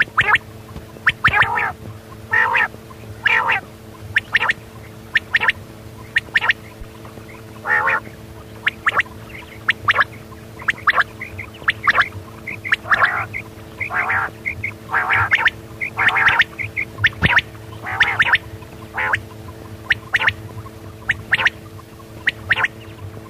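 Quail calling: short calls repeated in quick, irregular series, over a steady hum.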